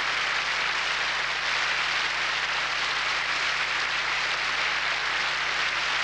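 Banquet audience applauding steadily and densely, without a break.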